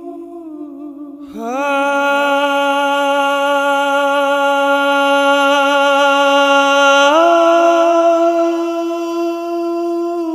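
Layered harmony voices singing wordless long held notes. About a second in, a louder, fuller chord slides up into place, and around seven seconds in the chord steps up in pitch.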